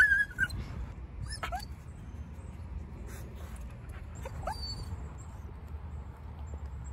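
Young retriever-mix dog whining, the way this nervous dog shows his lack of confidence: a loud high whine at the start that rises and holds for about half a second, then two shorter whines about one and a half and four and a half seconds in. A low steady rumble runs underneath.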